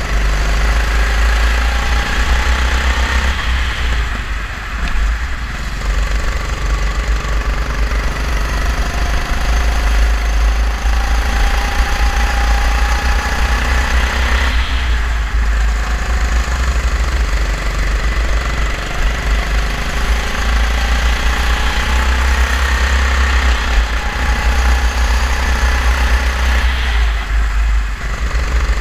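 Racing kart engine heard on board, running hard with its pitch rising along the straights and falling off briefly three times as the kart slows for corners, over a heavy low rumble.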